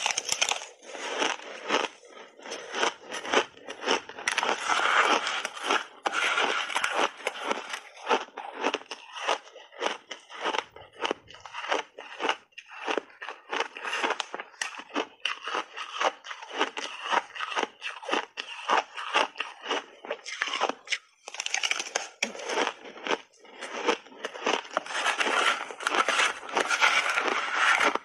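Close-miked chewing of a big mouthful of refrozen crushed ice: dense, irregular crunching that goes on without a break.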